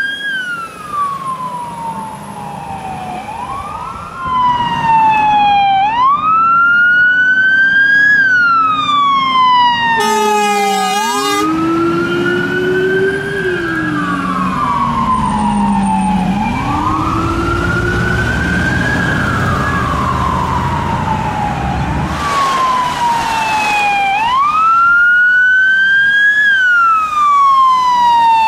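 Fire engine sirens wailing, rising and falling about every three to four seconds. About ten seconds in there is a short blast of an air horn, and in the middle a second, much lower-pitched siren wails beneath the main one.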